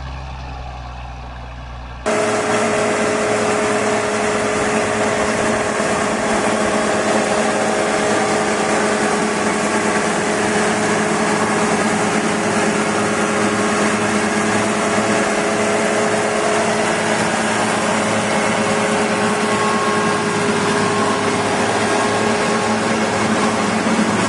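A machine engine running with a low rumble, then about two seconds in a cut to a louder, harsher machine running steadily, a dense noise with a few held tones in it.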